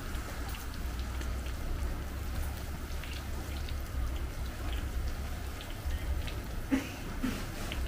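Battered banana slices deep-frying in a wok of hot oil: a steady sizzle full of small crackles and pops, over a low steady rumble. A couple of light knocks come near the end.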